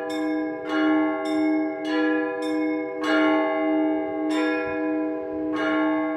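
Orthodox church bells rung by a bell ringer: about eight strikes on several bells in an uneven rhythm, roughly every half second to second, each ringing on and overlapping the next over a steady low bell tone.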